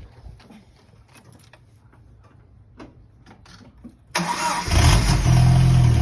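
A few faint clicks, then about four seconds in the 1995 Jeep Wrangler YJ's 2.5-litre four-cylinder engine cranks briefly, catches and runs steadily. It sounds loud through an exhaust newly fitted with a replacement catalytic converter and muffler.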